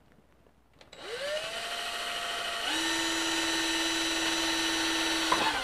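Cordless drill starting about a second in, spinning up to a steady whine as it bores a rivet hole through a knife sheath; its pitch steps up a little about halfway and it begins to slow at the very end. The bit is one the driller finds dull and a little bent.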